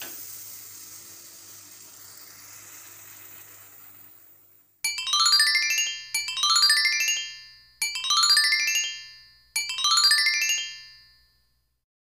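A hiss that fades away over the first four seconds, then a short bright musical jingle: a quick rising run of notes played four times, about every one and a half seconds.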